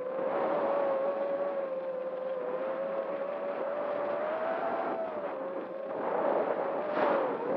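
FPV quadcopter's brushless motors and propellers whining steadily under a rush of air, the pitch wavering slightly with throttle, recorded on the drone's onboard camera. The sound grows louder for a moment about six to seven seconds in.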